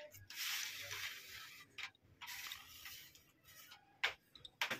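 LED strip panel sliding out of the plastic channel of an LED tube light's housing: a dry scraping rub in two stretches, the first louder, then a couple of light clicks near the end.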